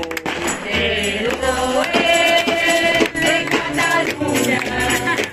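Live band music: a man singing through a hand-held metal megaphone horn over an upright double bass and drums, the bass pulsing steadily underneath.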